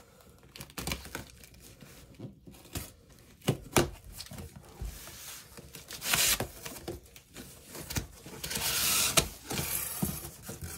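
Box and packaging of a flat-pack bookshelf being opened and handled: crinkling and tearing with scattered knocks, and a longer stretch of rustling near the end.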